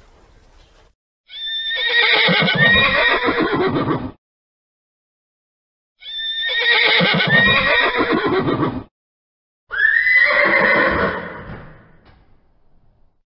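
A horse neighing three times: two long whinnies of about three seconds each with a quavering pitch, then a shorter one that fades out.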